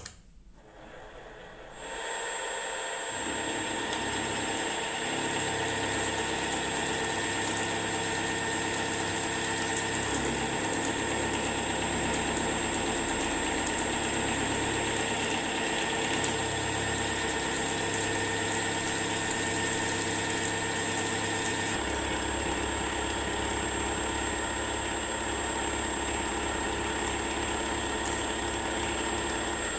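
Milling machine spindle starting up and then running steadily, driving a 12 mm high-speed steel roughing end mill milling the face of a part down to final height. A steady high-pitched whine sits over the machine's hum, which shifts in pitch a couple of times.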